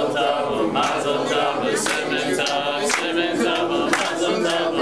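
Music: several voices singing together over a beat that falls about once a second.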